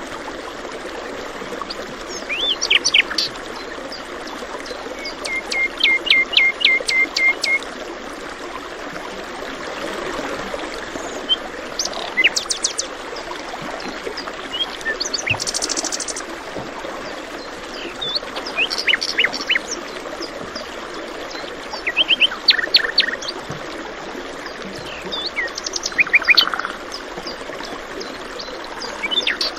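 Songbirds singing short phrases of quick high chirps every few seconds, one a run of about eight evenly spaced notes, over the steady rush of flowing stream water.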